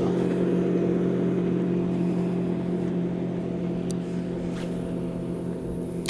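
Steady, low drone of a boat engine running out on the river, slowly fading.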